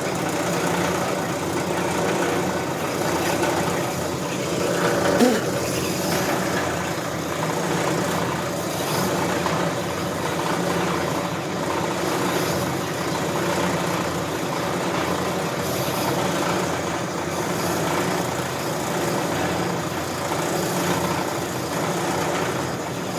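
Brake lathe running steadily, its cutting bit slowly facing down the steel clutch backing plate from a C6 automatic transmission at a slow feed. A short falling squeak about five seconds in.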